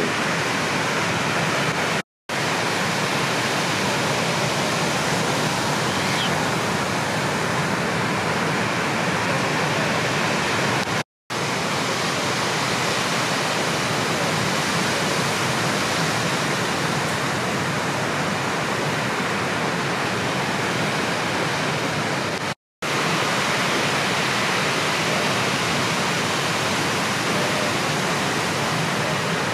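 Steady rushing noise of surf water and wind on a surfer's point-of-view camera, cutting out suddenly three times for a moment.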